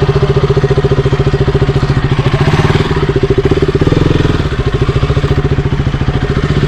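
A single-cylinder 200 cc motorcycle engine running at low revs with a fast, even pulsing beat, rising briefly about four seconds in.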